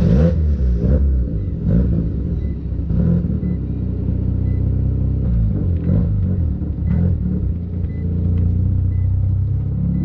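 Mazda RX-7 FC's turbocharged 13B rotary engine running as the car pulls away and drives slowly, its note rising and falling several times with the throttle.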